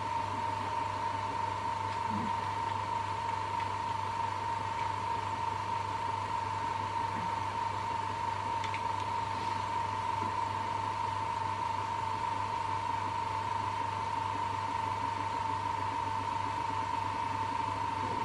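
Ortur Laser Master laser engraver etching a redwood bowl with its air assist blowing: a steady hum and a constant high whine over a hiss of air, unchanging throughout.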